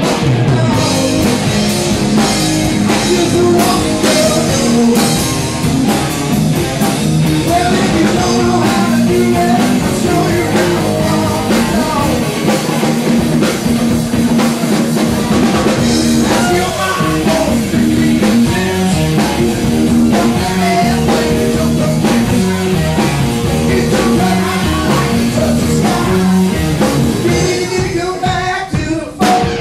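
A live rock band plays a cover song, with a singer, electric guitar and drum kit. The sound is loud and continuous, with a brief drop just before the end.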